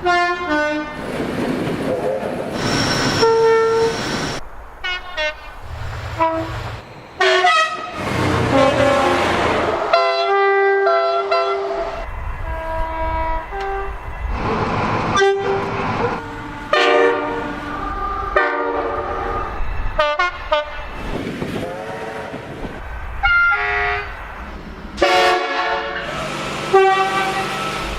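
A string of train horn soundings from several different trains, cut one after another: short and longer blasts, many of them two-tone. The low rumble of passing trains comes through between some of them.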